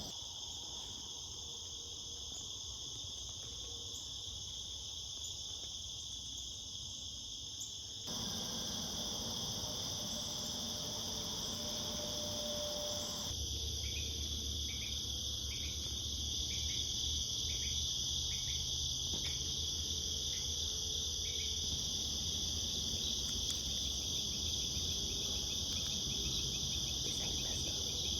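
Steady chorus of crickets and other insects, an unbroken high-pitched chirring. A low rumble joins it about halfway through.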